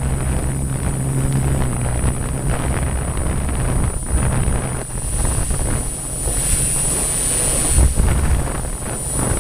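Six-rotor hexacopter drone's motors and propellers running with a steady hum, with gusty wind buffeting over it and a thin high whine throughout.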